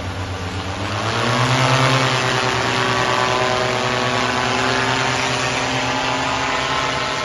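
A motor vehicle's engine running, its pitch climbing briefly about a second in as it speeds up, then holding steady.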